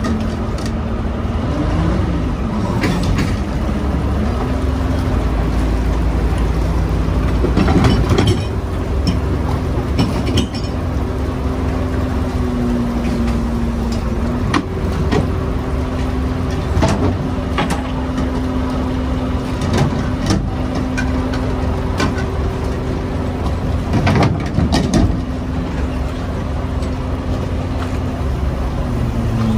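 Steady drone of a shirasu fishing boat's engine and machinery. Its hum dips in pitch briefly around the middle and comes back up, with occasional sharp knocks and clatter over it.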